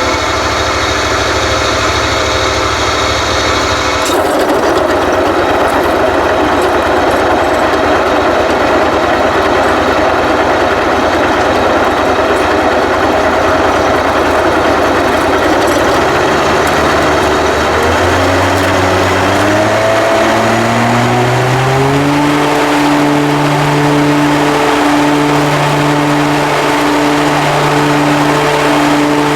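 Commercial lawn mower engine running loudly. The sound changes sharply about four seconds in, the engine speeds up in steps about two-thirds of the way through, and it then holds a higher steady note with a regular pulsing about once a second.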